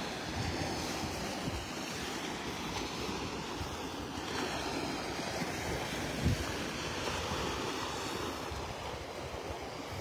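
Small Gulf of Mexico waves washing onto the sand in a steady surf wash, with wind buffeting the microphone in low gusts. A brief low thump about six seconds in.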